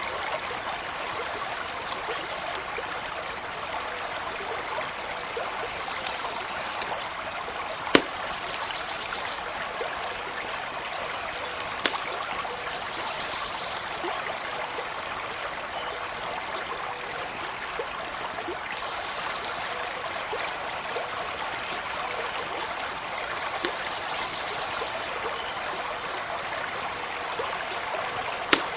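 A stream running and trickling steadily, with a few sharp pops from a crackling wood campfire, the loudest about eight and twelve seconds in and again near the end.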